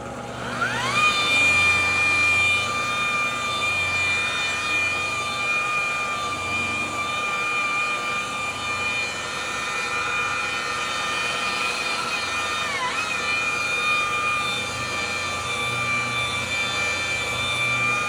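Electric car-paint buffer with a wool cutting pad spinning up with a rising whine about half a second in, then running at a steady high-pitched whine while cutting the paint. Its pitch dips briefly about two-thirds of the way through and comes straight back up.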